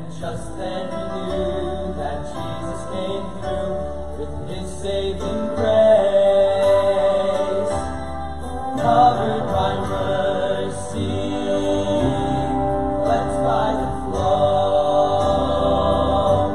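Male vocal quintet singing a sacred song in close harmony through handheld microphones, several voices holding and moving between notes together over a low bass part.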